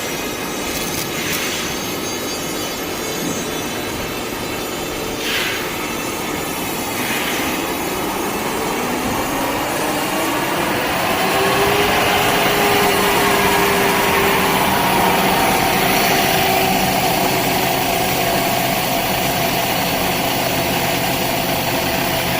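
Automatic film slitting and rewinding machine running, a steady mechanical whir with a few short hisses in the first seven seconds. About nine seconds in, its whine rises in pitch and grows louder as the machine speeds up, then holds steady.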